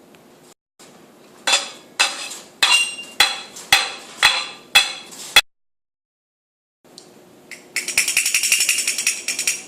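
About eight sharp knocks, roughly two a second, each with a short ringing tail. After a pause, a dense, rapid metallic jingling rattle.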